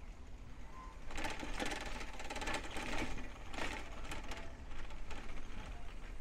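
Bicycle freewheel hub ticking rapidly as the bike coasts, louder from about one to four seconds in.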